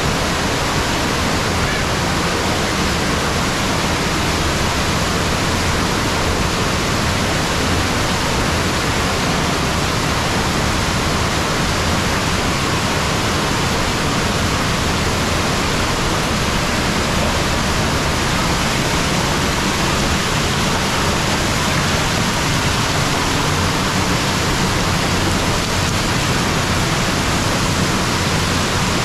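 Waterfall pouring over a rock ledge onto the rocks and pool below: a loud, steady rush of falling water with no let-up.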